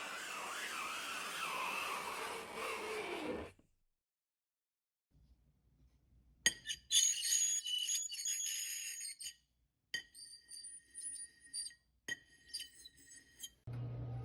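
A noisy, wavering hiss for about three and a half seconds, then after a pause a run of high clinking and jingling, in three spells broken by short gaps.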